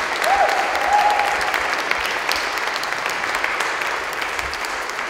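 Small audience applauding at the end of a live acoustic song, with a short whistle about half a second in that rises and then holds for about a second. The clapping slowly dies down.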